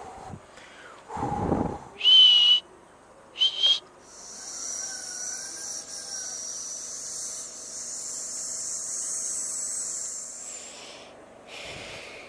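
Whistling: two short, clear high whistles, then a long, airy, hissing whistle with wavering high tones lasting about seven seconds.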